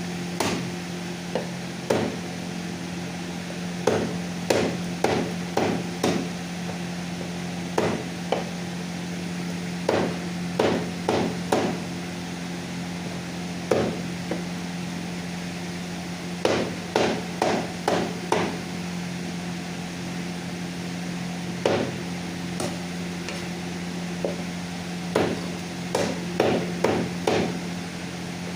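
Cleaver chopping chicken on a chopping block: sharp chops in quick runs of several strokes with pauses between, over a steady low hum.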